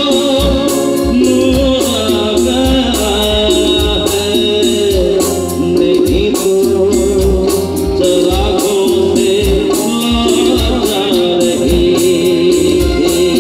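Live band music through a PA system: a male singer sings a melody over electric guitar, keyboards and a steady percussion beat.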